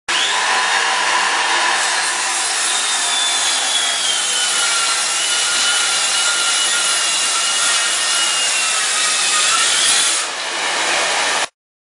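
Makita DHS680 18 V brushless cordless circular saw with a 165 mm blade ripping through three stacked OSB boards, about 52 mm deep. Its high whine drops in pitch as the blade loads up in the cut, holds there, and rises again near the end as the blade comes free of the boards.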